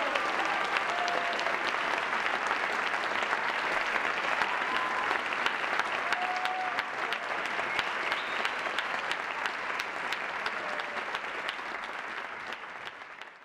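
Audience applauding at the end of a live performance, with a few cheers rising above the clapping; the applause fades out near the end.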